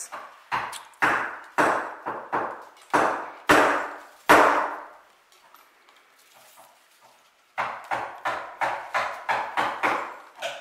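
Mallet striking a wood chisel, chopping out a mortise: a run of sharp blows with a short ring after each, a pause of about three seconds, then a quicker run of about three blows a second.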